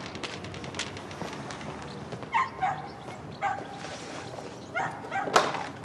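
A dog barks about five times in short, separate barks in the second half, with small clicks and knocks in between.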